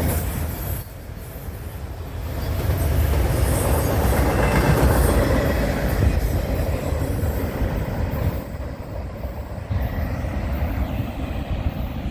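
Intermodal and autorack freight train rolling past: a steady rumble of wheels on the rails, louder from about two seconds in.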